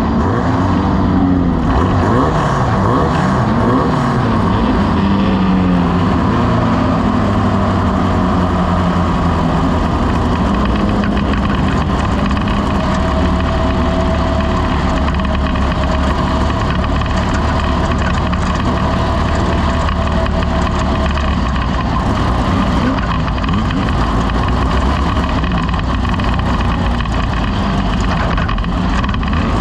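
Off-road race vehicle's engine running hard over continuous loud rumble and rattle, its pitch rising and falling in the first few seconds and then holding steadier.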